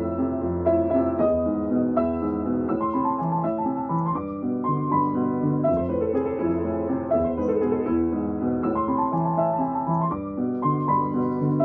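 Solo piano playing a gentle piece, a repeating low accompaniment with a melody above it.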